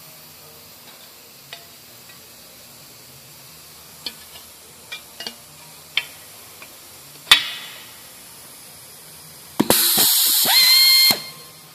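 4090 spin-pull pneumatic-hydraulic rivet nut tool cycling near the end: a loud rush of air with a rising whine for about a second and a half as it spins a rivet nut on and pulls it tight in an aluminium plate. Before it, a few light clicks and knocks of the tool and parts being handled.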